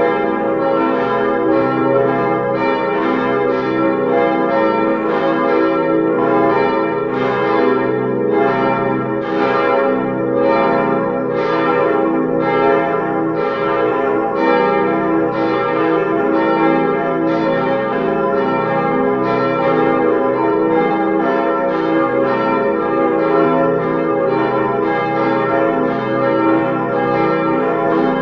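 Simulated peal of church bells, of the 1932 set cast by the Ulrich foundry in Apolda, swinging and striking in a steady, continuous overlapping rhythm of about two to three strikes a second.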